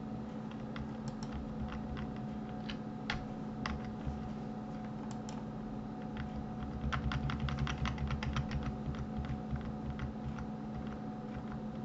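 Computer keyboard keys pressed in scattered, irregular clicks, busiest from about seven to nine seconds in, over a steady low hum.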